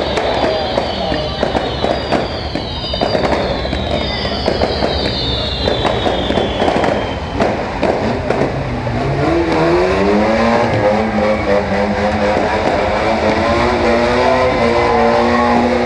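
Saloon stock car engine running, revving up about halfway through and then held at a steady high pitch. Before that, a rapid crackle of sharp pops with repeated high falling whistles over it.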